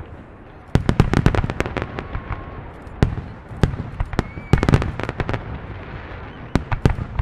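Aerial fireworks going off in rapid, irregular volleys of sharp bangs and cracks, some with a booming low end and echoing tails, with a faint whistle from a rising shell in between.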